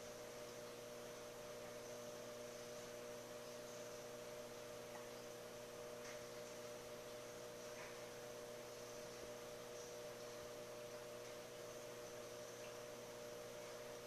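Steady electrical hum of running aquarium equipment, several tones over a faint hiss, with a few faint tiny ticks.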